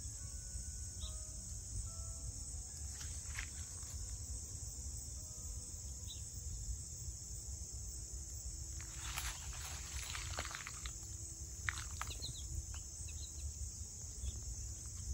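A steady, unbroken high-pitched insect chorus of late-summer crickets, over a low outdoor rumble, with a few brief chirps and rustles in the second half.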